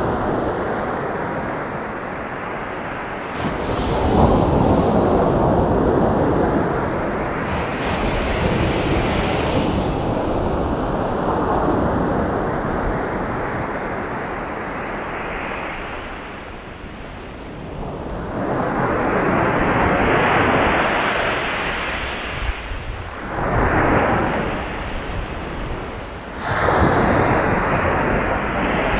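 Sea waves breaking and washing ashore in several swelling surges, over a steady low rumble. The loudest surges come a few seconds in and near the end.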